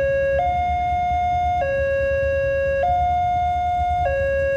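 Railway level-crossing warning alarm sounding: an electronic two-tone signal that alternates between a higher and a lower held tone, switching about every 1.2 seconds, the signal that a train is approaching and the crossing is closing. A low steady rumble runs beneath it.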